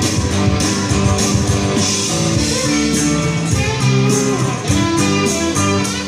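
Live rock band playing an instrumental passage: electric guitars over a steady beat, with notes bent up and down around the middle.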